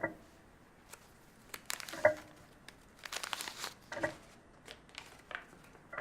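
Paper rustling and tearing, with two longer rustles in the middle, as a letter is handled and opened. Behind it, a clock tocks evenly about every two seconds.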